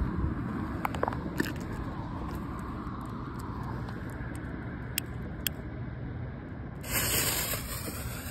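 The fuse of a salute canister shell in a mortar tube catches about seven seconds in and hisses loudly. Before that there are a few light clicks over a steady low rumble of street traffic.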